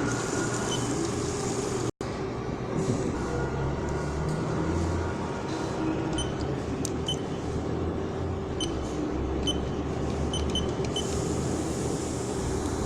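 CNC lathe running with a steady machine hum and a constant mid-pitched tone, broken by a momentary dropout about two seconds in, with faint high ticks now and then in the second half.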